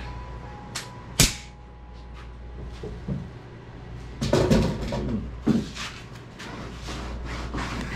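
A single sharp knock about a second in, with lighter clatter a few seconds later, over a steady low hum in a workshop.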